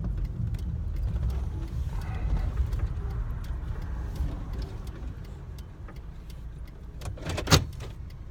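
Steady low rumble of a vehicle's engine and road noise heard from inside the cabin while driving, with one sharp click about seven and a half seconds in.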